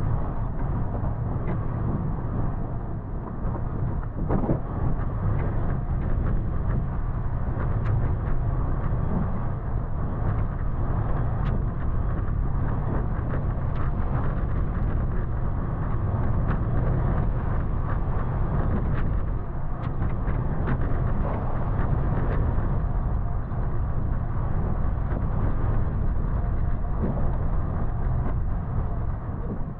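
Toyota FJ Cruiser's 4.0 L V6 running steadily as it drives a rough dirt trail, a low rumble with scattered clicks and knocks throughout.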